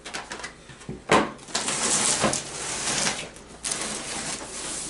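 Cardboard box being handled and opened: a sharp knock about a second in, then a couple of seconds of rustling and scraping of cardboard and packaging.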